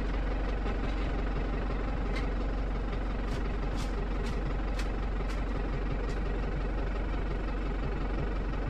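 Case tractor's diesel engine running steadily, with faint clicks about two a second in the middle.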